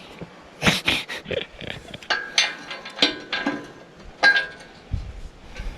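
A run of sharp metal knocks and clanks, several with a brief metallic ring, from hand tools and engine-hoist parts being worked on.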